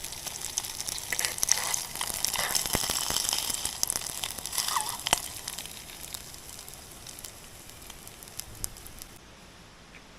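Food frying in a pan: a sizzle with many small crackles, fading over the second half.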